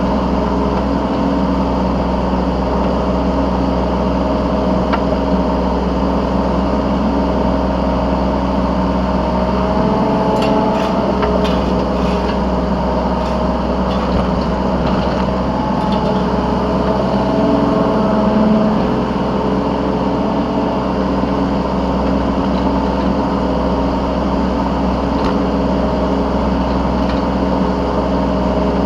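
Yanmar B3Σ 3-ton mini excavator's engine running steadily, heard from the operator's seat, its tones shifting in pitch in the middle as the machine works. A few light clicks about ten seconds in.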